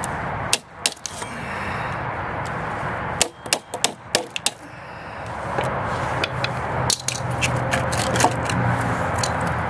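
Sharp metallic clinks, knocks and rattles of steel E-core laminations being knocked out of a microwave oven transformer and dropping, with a quick run of them about three to four and a half seconds in, over a steady rushing noise.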